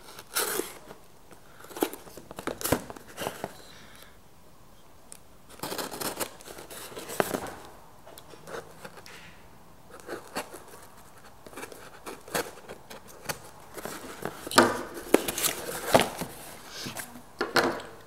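Opening a taped cardboard box: a utility knife slitting the packing tape, then cardboard and tape tearing and packing material rustling as the box is pulled open. The loudest cluster of tearing and rustling comes near the end.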